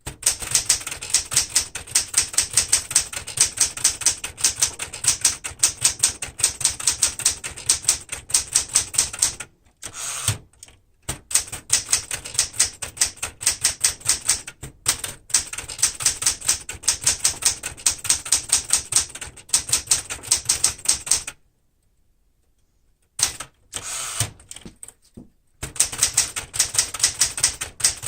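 1973 Smith-Corona Galaxie Twelve manual typewriter being typed on quickly, with rapid runs of key strikes. The runs break off briefly about ten seconds in and stop for about two seconds near the two-thirds point before the typing resumes.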